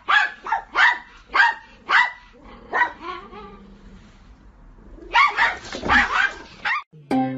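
A dog barking in short sharp barks, about two a second for the first three seconds, then a pause and a quick, louder flurry of barks. Plucked-string music starts just at the end.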